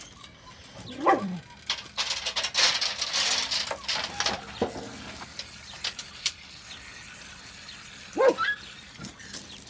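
A dog yelps about a second in and again near the end. In between, dry kibble rattles as it is tipped out of a metal basin into a feeding tray.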